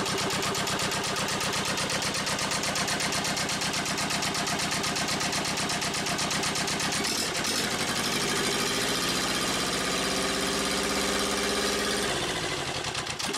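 Yanmar 2GM two-cylinder marine diesel running on a test stand with a steady firing rhythm; about halfway through the throttle is opened and the engine revs up over a few seconds, holds, then drops back to idle near the end.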